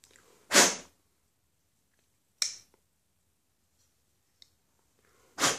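Three short, sharp puffs of breath blown onto a folding knife, about two seconds apart, to clear debris and lint from it.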